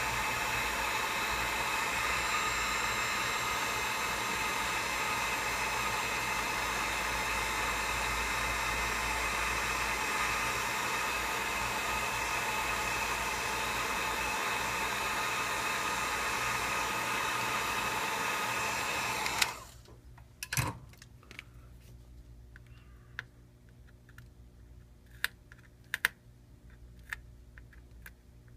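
A hot-air blower runs steadily and cuts off suddenly about two-thirds of the way through. After that come light, scattered clicks and taps of small tools on a phone's parts.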